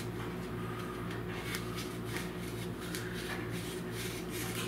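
Handheld metal apple corer pushed and twisted through a peeled Honeycrisp apple: faint, irregular scraping and rubbing over a steady low hum.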